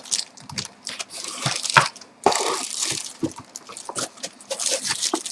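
Packaging being handled: irregular crinkling, rustling and clicks as the soldering station is taken out of its box.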